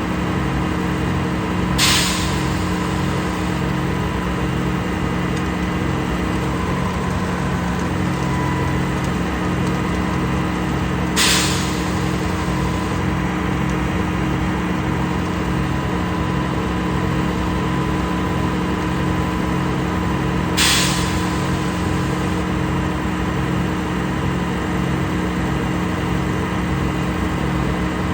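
Concrete pump's engine running steadily with a low throb, and a sharp hiss about every nine to ten seconds, three times.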